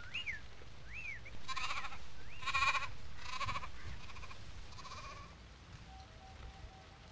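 A goat bleating about four times, the middle two calls loudest, with a few short rising-and-falling chirps before and between the bleats.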